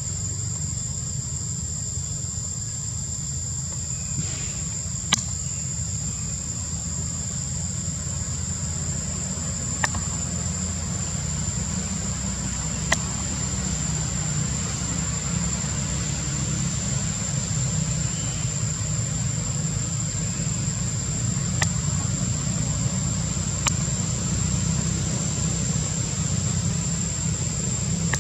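Steady high-pitched insect drone over a constant low rumble, with about five short sharp clicks scattered through it.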